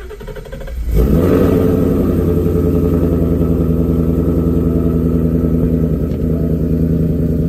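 2016 Ford Mustang GT's 5.0 V8, fitted with an X-pipe and Roush exhaust, cranking on the starter and firing up about a second in, then settling into a steady fast idle.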